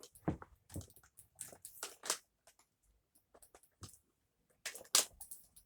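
Plastic parts of a Dyson DC07 upright vacuum being handled and fitted back on, giving irregular clicks and knocks. The loudest knocks come about five seconds in.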